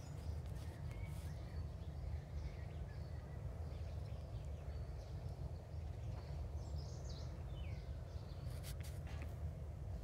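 Garden ambience: scattered faint bird chirps over a steady low rumble, with a few short rustles near the end.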